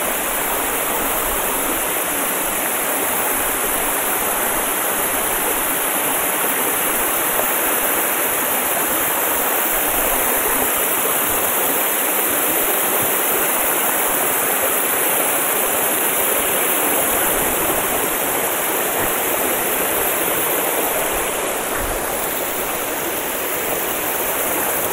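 Steady, even rush of water pouring down a small seasonal forest waterfall that runs only when the stream is high.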